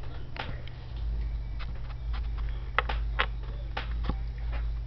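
Light irregular clicks and taps from small objects being handled, over a low rumble of a handheld camera being moved.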